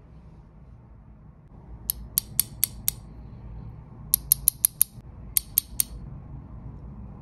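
Sharp, crisp clicks of the Seiko SSB413P1 chronograph's pushers being pressed repeatedly: a quick run of five, then five more, then three, about four a second.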